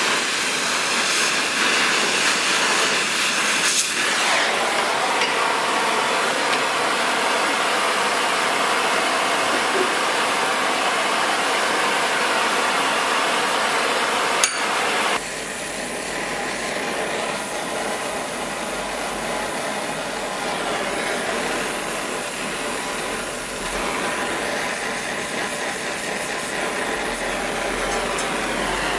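Oxy-acetylene torch flame hissing steadily as it heats metal held in a vise. A single sharp click comes about halfway through, after which the hiss is a little quieter and a low hum joins it.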